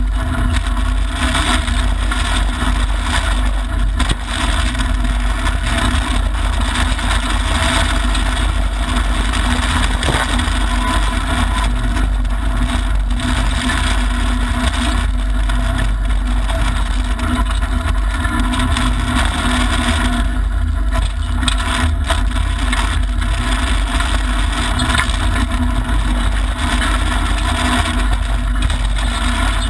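Mitsubishi Lancer Evolution IX rally car's turbocharged four-cylinder engine running hard, heard from inside the cabin, mixed with steady tyre and gravel noise.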